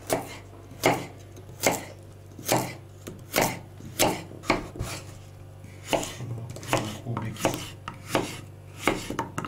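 Kitchen knife chopping a carrot, then a potato, on a wooden cutting board: a dozen or so sharp knocks, about one a second at first and quicker in the second half.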